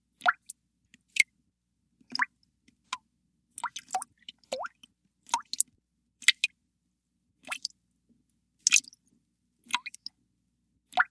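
Water drops falling one at a time into water, each a short plink that rises quickly in pitch, about a dozen at an irregular pace of roughly one a second.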